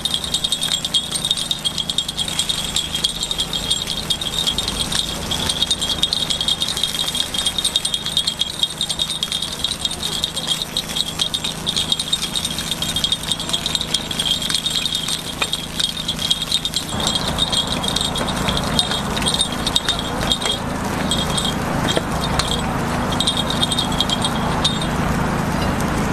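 Metal takoyaki picks clicking and scraping rapidly against the cast-iron takoyaki pan, a dense run of metallic ticks over a steady high ringing that breaks into short pieces near the end.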